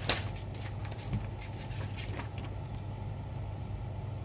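Clicks and handling sounds from a mechanical keyboard on the desk: one sharp click just at the start, then a few fainter clicks over the next two seconds. A steady low hum runs underneath.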